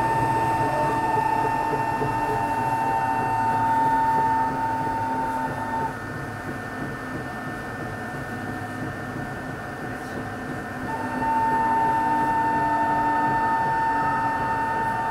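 Tokyo Metro 03 series electric train running, with a steady high electrical whine over the rumble of the train. The whine cuts out about six seconds in, the sound drops quieter, and the whine returns about eleven seconds in.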